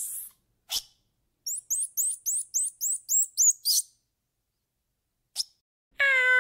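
A small animal gives two short squeaks, then a rapid run of about a dozen very high-pitched chirps, about five a second, lasting a couple of seconds. Near the end a cat starts a meow.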